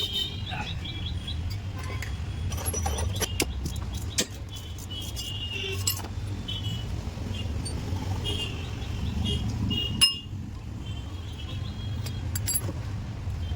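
Irregular metallic clinks and clicks of tools and parts being handled while a car's starter motor is taken apart, over a steady low background rumble.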